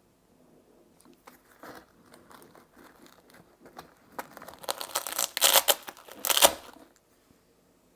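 Crinkling and rustling handling noise with scattered light clicks. It builds to a louder stretch of crinkling about four to six and a half seconds in, then stops.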